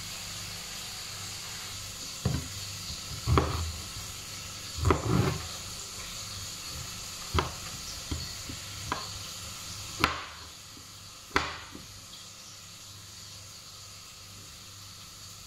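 Knife cutting bitter gourd on a wooden cutting board: irregular sharp knocks, some in quick pairs, over a steady high hiss that drops a little about ten seconds in.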